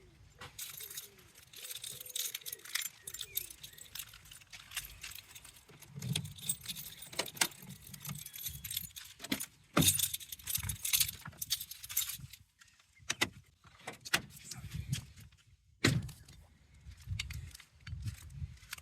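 Irregular clicking, clinking and rustling of parts being handled: a DIY AC recharge hose with its screw-on adapter and refrigerant can.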